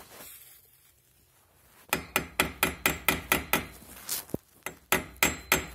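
A quick run of sharp metal taps, about five a second, starting about two seconds in with a short break partway through. These are the pad retaining pins being tapped flush in a car's brake caliper.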